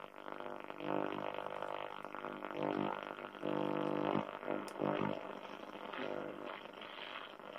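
Vintage Grundig transistor radio being tuned across the medium wave band, putting out a steady droning buzz of interference with held tones that swells and fades as the dial moves.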